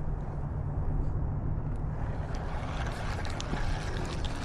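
Steady outdoor background noise: a low rumble with a hiss over it, turning brighter about two seconds in, with a few faint ticks.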